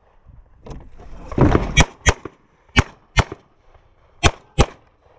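Semi-automatic handgun firing three quick double-taps, pairs of shots about a second apart, as the shooter engages targets in turn.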